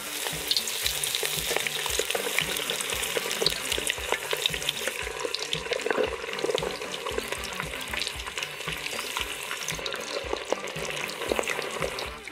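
Breaded chicken drumsticks frying in a pot of hot oil: a steady sizzle thick with fine crackles, easing off near the end.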